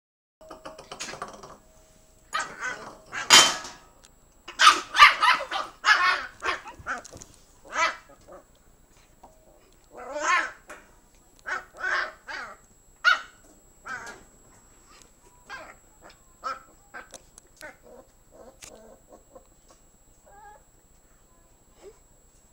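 Cairn Terrier puppy barking and yipping in short bursts, mixed with a bowl clattering and knocking on a tile floor. The sounds are loudest and busiest in the first several seconds, then come fewer and fainter.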